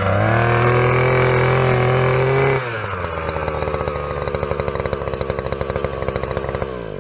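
Predator gasoline post hole auger engine running at high revs. About two and a half seconds in it drops to a slower, pulsing idle, then winds down with falling pitch near the end.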